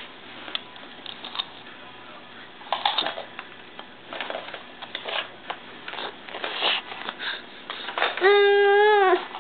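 Light scattered knocks and taps of toys and hands on a rug, then near the end a baby's single held vocal 'aah', about a second long, rising in pitch at the start and dropping at the end; it is the loudest sound.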